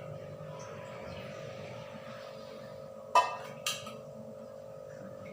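Kitchenware clinking twice, sharp and about half a second apart, a little past the middle, over a steady hum.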